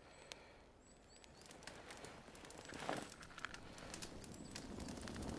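Dry pine log stove, cut with a cross and lit with bark and twigs in the slots, catching fire: scattered crackles and pops that grow steadily louder as the fire takes hold.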